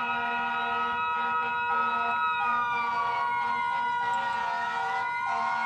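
Emergency vehicle sirens sounding together. One wail slowly falls in pitch and then rises again, over steady held tones, while a lower tone cuts in and out.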